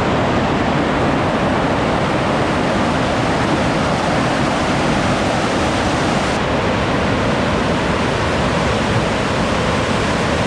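Large waterfall: a deafening, steady rush of water crashing down onto rocks.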